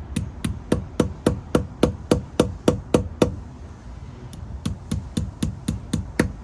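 Hammer tapping a cover into place on the van's wheel hub: two quick runs of even strikes, about four a second, with a short pause between them. Many of the strikes ring with a clear metallic note.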